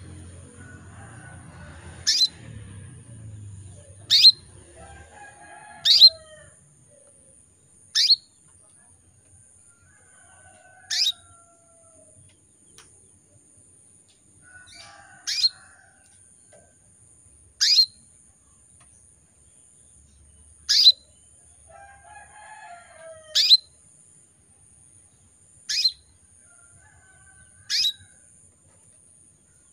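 Female canary in breeding condition calling to a male: a short, sharp, downward-sweeping call note repeated about every two to three seconds, eleven times, with faint softer twittering between some calls.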